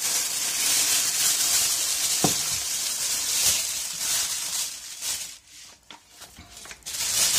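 Plastic roasting sleeve crinkling and rustling as a pork knuckle is pushed into it and the film is handled, quietening briefly about five seconds in before the rustling resumes.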